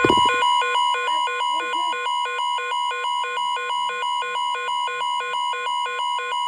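Emergency alert warning tone: a steady tone near 1 kHz with a second, pulsing set of tones switching about four times a second laid over it. A loud low hit sounds right at the start.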